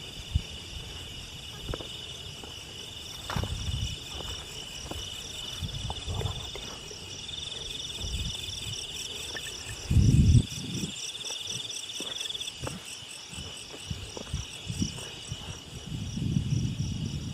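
Night insects such as crickets chirring steadily in a high, fast-pulsing trill. Low thumps and rumbles come and go underneath, the loudest a brief bump about ten seconds in and more near the end.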